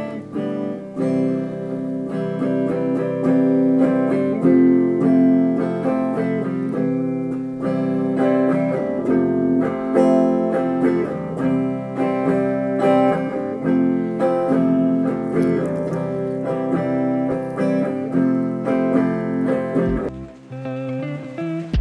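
Electric guitar being played, picked notes and chords ringing, breaking off near the end.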